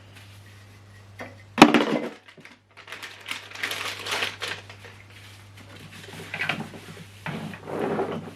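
Vacuum cleaner parts and accessories being handled: one sharp knock about one and a half seconds in, then bouts of rattling and clattering as pieces are picked up and moved.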